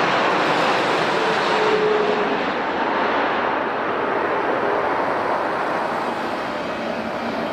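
Jet airliner engine noise, a steady rushing sound with faint falling tones, slowly fading as the aircraft moves away.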